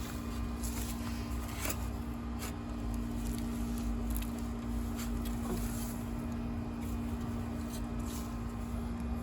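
Short scrapes and knocks of garden soil being dug by hand, several times, over a steady low mechanical hum.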